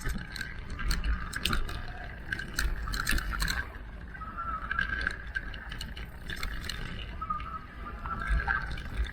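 Electric mountain bike ridden over a rough trail: rattles and knocks from the bike, densest in the first few seconds, over a wavering whine and a steady low rumble.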